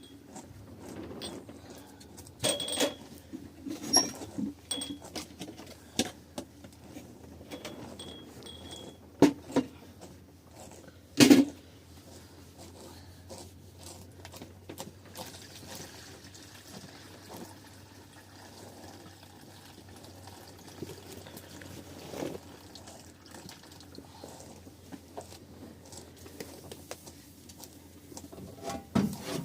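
Scattered knocks and clinks from objects being handled, the loudest a sharp knock about eleven seconds in, between stretches of low background noise.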